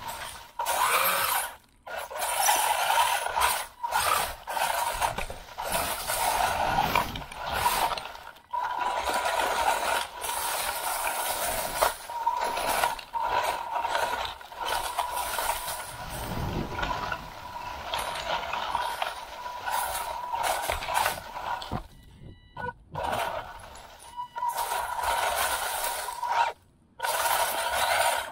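WLtoys 144001 RC buggy's brushed electric motor and drivetrain whining in bursts as the throttle is worked, heard from a camera mounted on the car, with the chassis rattling and tyres churning over rough leaf-strewn ground. The whine cuts out briefly several times when the throttle is let off.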